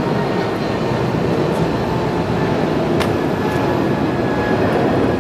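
Boeing 777 jet engines at takeoff power as the airliner climbs out: a loud, steady, even roar with faint steady whining tones. A faint click about three seconds in.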